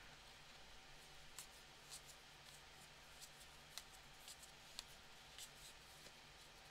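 Faint, irregular soft clicks and slides of cardboard baseball trading cards being flipped through one by one in the hands, over a low steady room hum.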